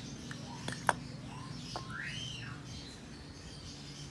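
A few light clicks and knocks as a metal throttle body is handled and set down on a cloth, the loudest just before a second in. A bird chirps once, a single rising-and-falling call, about two seconds in, over a low steady hum.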